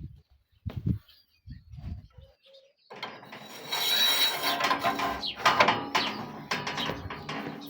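A few dull low knocks, then about five seconds of loud metal clattering and scraping with many sharp clicks, as parts of a welded steel barbecue grill are worked.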